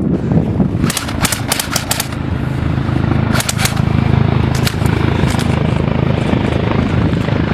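WZ-10 attack helicopter flying low overhead, its rotor and engines giving a steady low drone. Clusters of sharp cracks come through about a second in and again around three and a half seconds.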